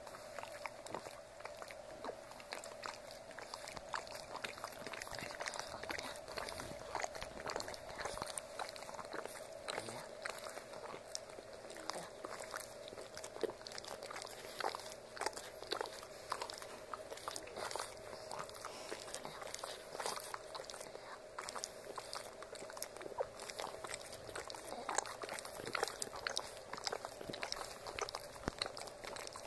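Boston terrier licking over and over: an irregular run of wet smacking and lapping clicks, several a second, with a faint steady hum underneath.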